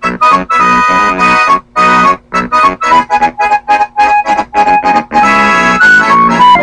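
Instrumental music with a reedy, accordion-like sound playing short, choppy chords separated by brief breaks, ending on a longer held chord.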